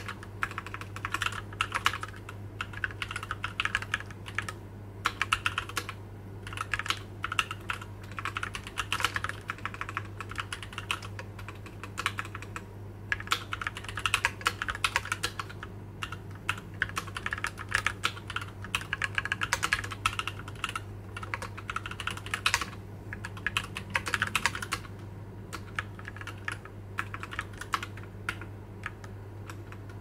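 Typing on a Keychron Q11 split mechanical keyboard in a CNC aluminium case, with Gateron G Pro Red linear switches and OSA PBT keycaps: quick runs of keystrokes with short pauses, thinning out near the end. The clicks are hard and firm, with no gasket mount to soften them.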